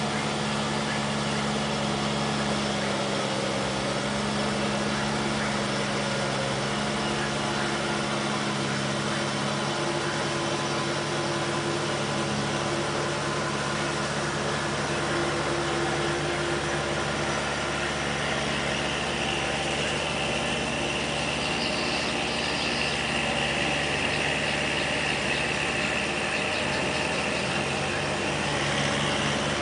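Farm tractor engine running steadily while it tills a flooded rice paddy, its note shifting slightly partway through. A high steady tone joins in about two-thirds of the way through.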